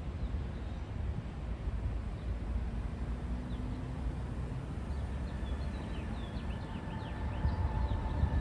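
Street ambience: a steady low rumble of wind and passing car traffic, with small birds chirping from about three seconds in and a faint steady high tone joining a little later.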